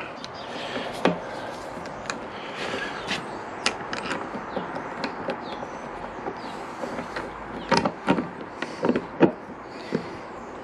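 Light clicks and knocks of a motorcycle mirror and its mounting bolts being handled against the fairing as the bolts are threaded in by hand, with a quick cluster of knocks near the end.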